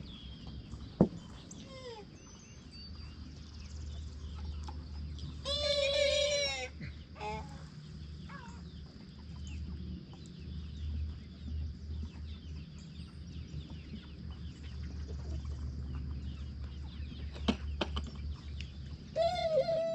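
Chickens clucking with many small scattered calls, and a steady low hum under them. One loud drawn-out call stands out about six seconds in, and a shorter one comes near the end.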